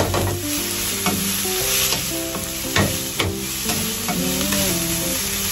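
Wooden spatula stirring broccoli sautéing in oil in a nonstick frying pan. The food sizzles steadily under a few sharper scrapes of the spatula against the pan.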